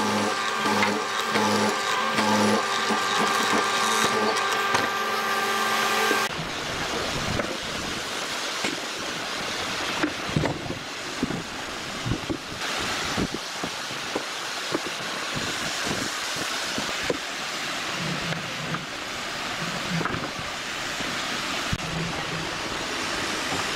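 Hollow-chisel mortiser running with a steady whine and a regular pulse as its chisel cuts into wood, cutting off abruptly about six seconds in. After that come scattered light knocks and taps of wooden pieces being handled and fitted together over a steady background hiss.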